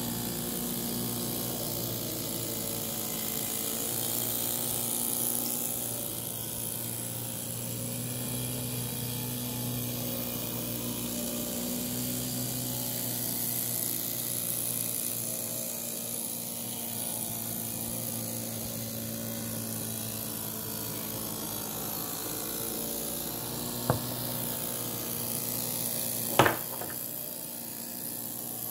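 Miniature live-steam traction engine running, a steady mechanical whirr with a hiss of steam. Near the end come two short sharp knocks, the second louder.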